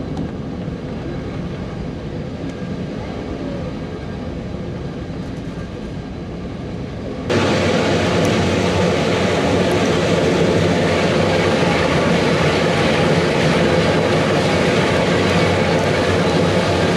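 Mount Washington Cog Railway train running up the mountain: a steady rumble and drone of the locomotive and coach on the rack track. About seven seconds in it cuts abruptly to a louder, brighter take of the same steady running noise.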